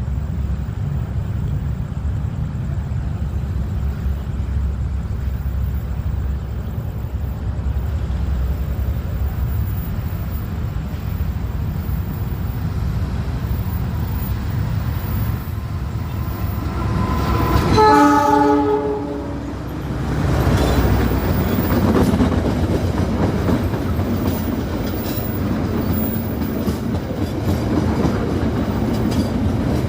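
Diesel-hauled passenger train running slowly, a steady low engine rumble throughout. About two-thirds of the way through, the locomotive horn sounds once for about a second. After it the rumble and rattle of the train rolling grow fuller.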